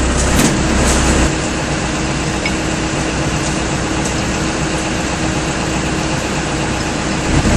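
Steady drone of running plant-room machinery, with a steady mid-pitched hum running through it; a deeper rumble drops away about a second in.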